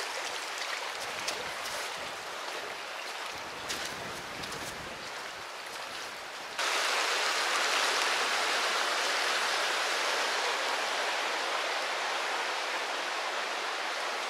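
Creek water running over rocks, a steady rushing noise. About six and a half seconds in it cuts abruptly to a louder, closer rush of water.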